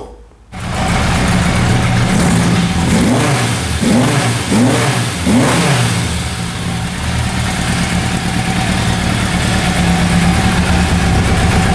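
Yamaha motorcycle engine running, blipped with the throttle four times in quick succession a few seconds in, each blip a quick rise and fall in pitch, then idling steadily.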